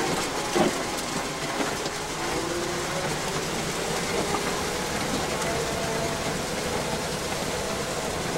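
1975 Jeep CJ5's 258 inline-six engine and drivetrain running steadily at crawling speed on a rocky trail, heard from inside the Jeep, with a sharp knock just over half a second in.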